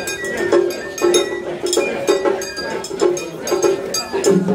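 Japanese festival music: a quick run of sharp metallic and wooden strikes over a held pitched melody line.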